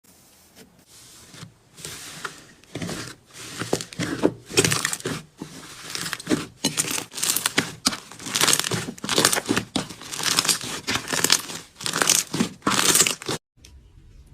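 Slime being squeezed and stretched by hand, making repeated crackling, crinkly squishes that cut off suddenly near the end.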